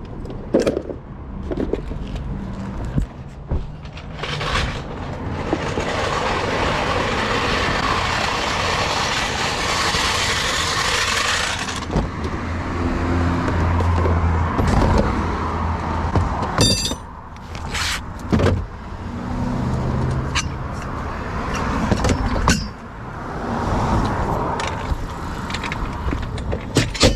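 Road vehicle noise: a long swell of passing-vehicle or engine noise lasting several seconds, then a low engine hum, with scattered clicks and knocks throughout.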